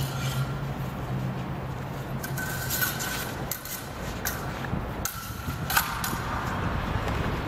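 Steel rapier and dagger blades clashing several times: sharp clicks, some with a brief metallic ring, the sharpest about six seconds in, over a steady background rumble.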